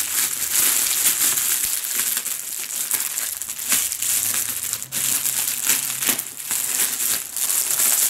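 Cellophane wrap around a head of iceberg lettuce crinkling as a hand pulls at it to open it.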